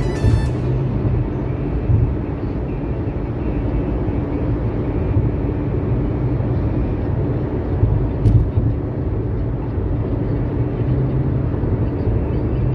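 Steady low rumble of a car's tyres and engine at highway speed, heard from inside the cabin. A single short click comes about eight seconds in.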